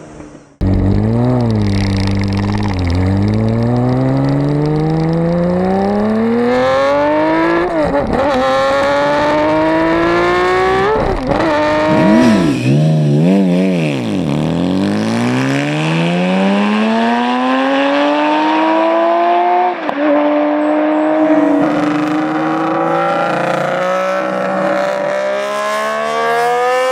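Inline-six motorcycle engines accelerating hard through the gears, the pitch climbing steadily in each gear and dropping sharply at each upshift, in several clips one after another.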